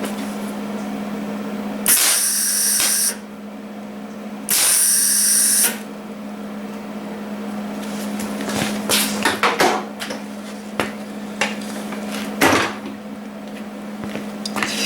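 A small handheld power tool run in two short bursts of about a second each, cutting the ball end off a throttle cable, followed by scattered clicks and taps of handling the parts, over a steady low hum.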